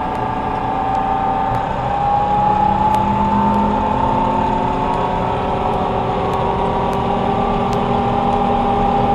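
Combine harvester running with its rasbar threshing cylinder engaged, a steady mechanical whine over engine drone. About two seconds in the whine rises slightly in pitch and the overall sound gets a little louder, as the machine comes up in speed.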